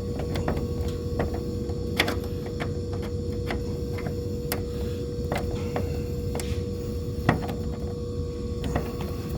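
Hand tools clicking and knocking against a contactor's metal terminal screws as a heavy wire lug is tightened down, in irregular sharp ticks. Under them runs a steady machinery hum with a steady mid-pitched tone.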